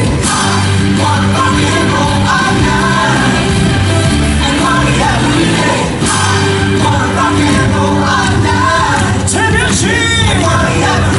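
Live rock-and-roll stage number over the theatre's sound system: a band track with a steady bass line and singers performing into headset microphones. About nine seconds in, a singer holds a rising note.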